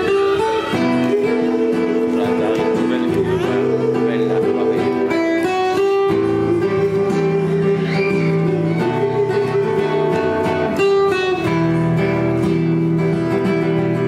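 Nylon-string classical guitar played solo in a Latin ballad style, strummed chords mixed with plucked, ringing notes.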